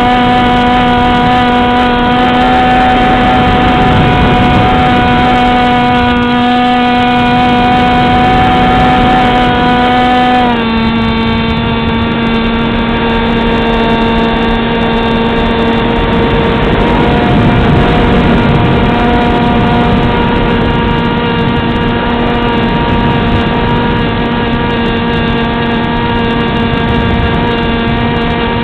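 Motor and propeller of a Beta 1400 model plane heard from on board in flight, a loud steady whine that steps down slightly in pitch about ten seconds in.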